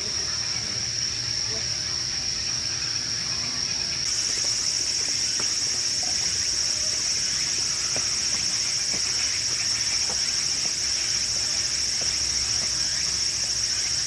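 A steady, high-pitched chorus of summer night insects singing without a break, growing slightly louder about four seconds in, with people's voices faintly underneath.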